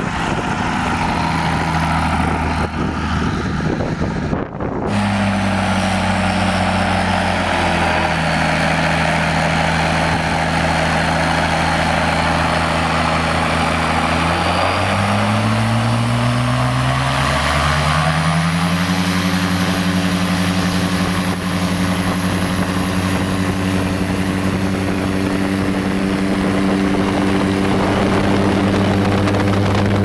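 RED V12 twin-turbo diesel engine of an Air Tractor 301 crop duster, running and turning its propeller, with a thin high whine above the engine note. There is a brief break about five seconds in. About halfway through the engine speeds up, rising in pitch, and then holds steady at the higher speed.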